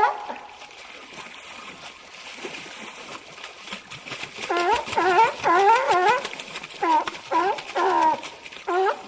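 Seals barking in runs of short, pitched barks, two to three a second, over splashing water. After a brief run at the start the barking stops for a few seconds, then resumes about four and a half seconds in and keeps going in bouts.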